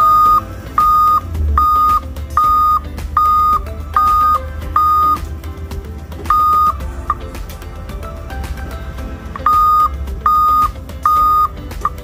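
Newly installed reverse backup alarm, wired to the truck's reverse-light circuit and being tested: a loud, single-pitch beep repeating about every 0.8 seconds, over the idling engine of a 2007 Dodge Ram 2500 Hemi. The beeping stops after about five seconds, gives two more beeps, pauses again, then sounds three more times near the end.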